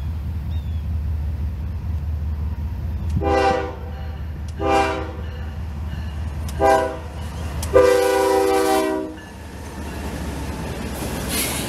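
Norfolk Southern freight train's diesel locomotive horn sounding four blasts as the train approaches, the last held longest and loudest. Near the end the rumble of the locomotives and wheels rises as they pass close by.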